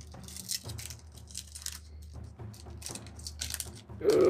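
Trading cards being handled and flipped through, with a run of light, irregular clicks and rustles.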